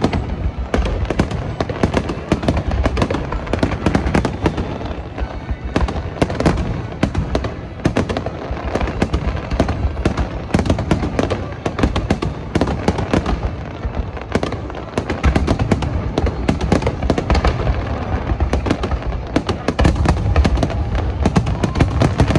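Aerial firework shells bursting in a dense, continuous barrage, many bangs and crackles overlapping one another, with music playing underneath.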